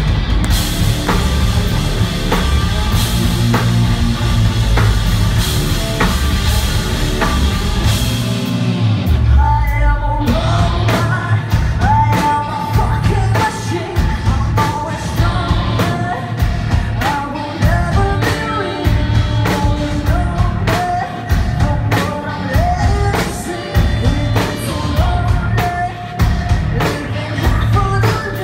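Live rock band playing: electric guitars, bass and drum kit. The low end drops out briefly about nine seconds in, then a female lead vocal sings over the band.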